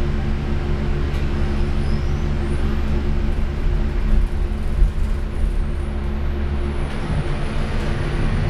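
Midstate hydraulic elevator car's door sliding shut over a steady low machine hum. The hum's deepest part shifts about seven seconds in.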